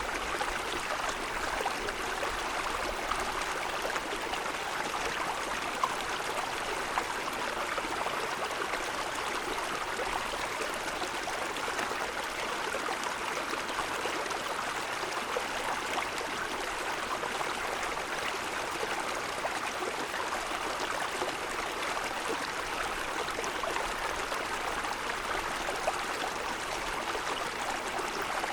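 Mountain forest stream running over stones: a steady rushing babble of water, with a few brief louder splashes.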